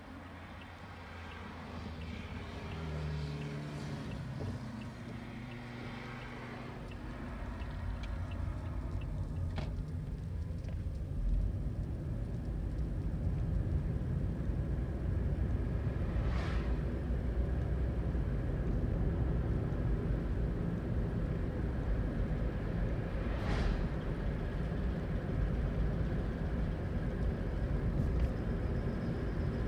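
Toyota Aqua hybrid on the move: a low road and tyre rumble that builds over the first several seconds and then holds steady, with two brief swishes about seven seconds apart.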